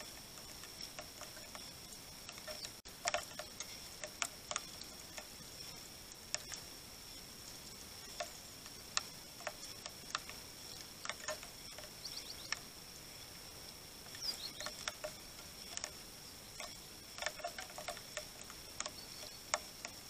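Irregular sharp taps of raindrops falling on the wooden feeder stump and seed pile, sometimes several close together. A faint steady high whine runs behind, with a brief small-bird chirp about fourteen seconds in.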